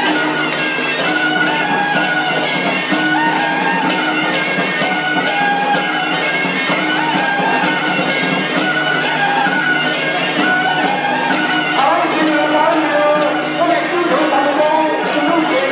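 Music: a held melody line that moves in pitch over a steady percussion beat of about three sharp strikes a second.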